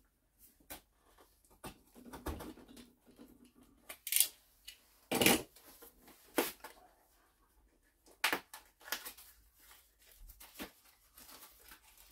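A small cardboard product box being opened by hand: a cutter slitting its seal, with irregular taps, scrapes and short rustles of the packaging. The loudest scrapes come about four, five and eight seconds in.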